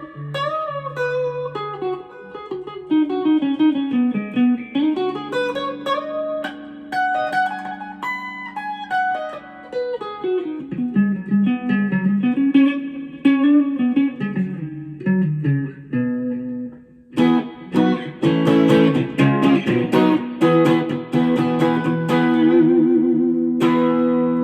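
Preacher Guitars Strat-style 'Catalpa' electric guitar on its fourth pickup-selector position (Fender Noiseless pickups), played clean through a Boss Katana 150 amp. It plays single-note lines with bends and slides for about sixteen seconds, then switches to strummed chords and ends on a ringing chord with a wavering vibrato.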